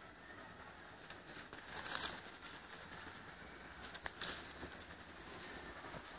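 Faint rustling and crunching of footsteps in dry leaf litter, with scattered small crackles and two louder crackling bursts, about two seconds in and about four seconds in.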